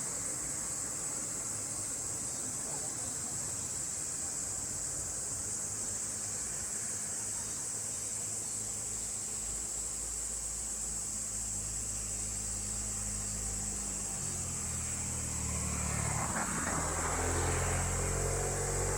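A steady, high-pitched drone of cicadas singing in the summer woods. From about ten seconds in, a low engine hum of a passing vehicle builds, swelling louder near the end.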